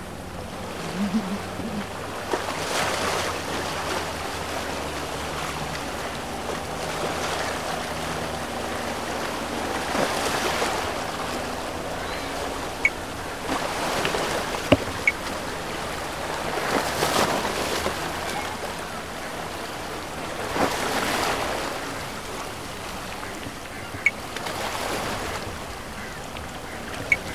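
Small sea waves washing in, swelling about every three to four seconds, over a low steady hum from a speedboat's engine, with a few sharp clicks.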